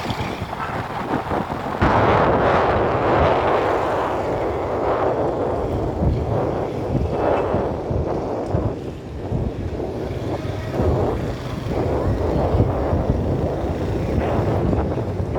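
Wind buffeting the microphone, a rushing noise with a low rumble that gusts up and down, getting louder about two seconds in.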